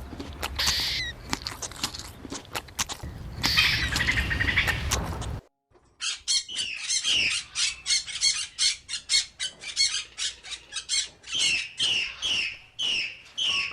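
Animal calls: harsh squawks over a noisy outdoor background, then after a brief cut a fast run of high chirps, several a second, that slows toward the end, each chirp falling in pitch.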